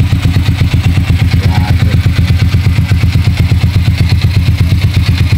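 Vperman 150 motorcycle's air-cooled single-cylinder engine idling steadily with an even, rapid putter, running again just after a top overhaul with a new piston kit.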